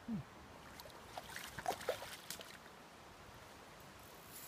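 Faint flowing river water, with a scattered run of light clicks and short high blips about a second to two and a half seconds in.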